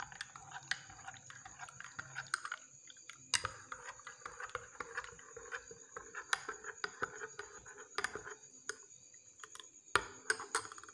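Metal spoon stirring gelatin into hot water in a cut-glass tumbler, clinking irregularly against the glass, with a few louder clinks every couple of seconds.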